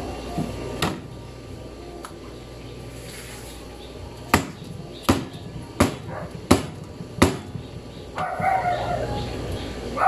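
Five sharp knocks, evenly spaced about three-quarters of a second apart, like a utensil striking a hard surface. A short voice-like call follows near the end.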